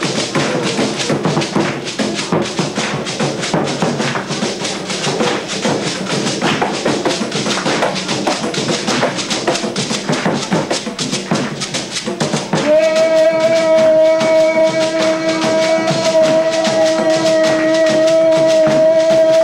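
Festive Latin American music with dense, fast percussion, tambourine-like, in the style played for São João festivities. About two-thirds of the way through, a long steady note enters and is held over the percussion.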